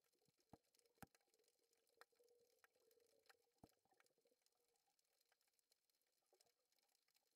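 Near silence underwater: faint scattered clicks, with a faint hum in the first half.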